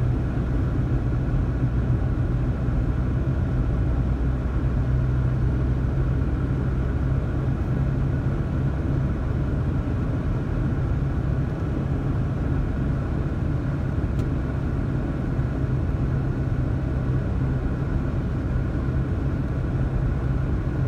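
Steady road noise inside a moving car: the engine's low hum and the rumble of tyres on a snow-covered road, with no change in speed.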